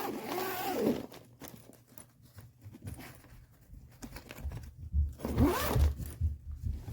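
Fabric-tape zipper on a carry-on suitcase's interior being run along its track, with a pull at the start and another about five seconds in, with small clicks and low handling knocks between.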